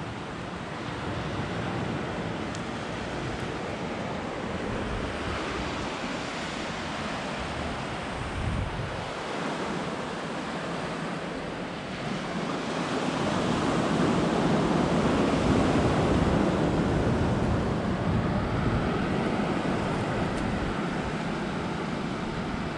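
Atlantic surf washing onto the beach, a steady rush that swells louder a little over halfway through, with some wind on the microphone.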